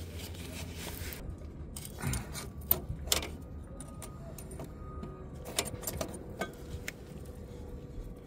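Scattered light clicks and metallic clinks of a fuel filter's line fitting and spring clip being worked by hand, with a handful of sharper clicks spread through.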